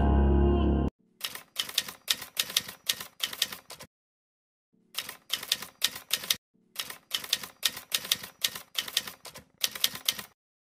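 Typewriter keystroke sound effect clacking in rapid runs, in time with on-screen text typing out letter by letter. It comes in three runs separated by short pauses, after background music cuts off about a second in.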